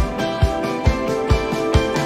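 Background music with a steady beat, a little over two beats a second, under sustained melodic notes.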